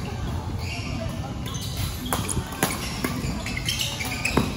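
Badminton rally: sharp racket strikes on the shuttlecock, three in all, about two seconds in, about half a second later, and the loudest near the end, with short squeaks of shoes on the court floor.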